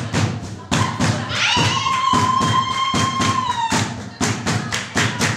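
Group hand clapping and barefoot stamping on a hard floor, in a quick, steady beat for children's dancing. About a second and a half in, a high voice holds one long note for around two seconds over the beat.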